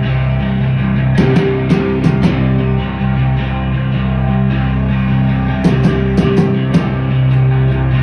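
A live post-hardcore/math-rock band playing with amplified electric guitars, bass guitar and drums. The guitars and bass hold a steady, droning tone, broken by two quick clusters of drum hits, one about a second in and one about six seconds in.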